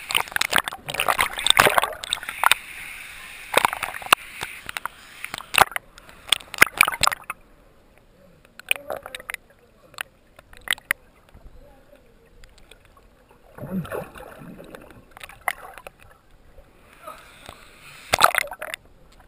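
Water splashing and sloshing around a waterproof action camera held at the surface of a river pool, with many sharp splashes. After about seven seconds the sound turns muffled and dull as the camera goes underwater, with scattered clicks and a brief low burst about two-thirds through. Another flurry of splashing comes near the end.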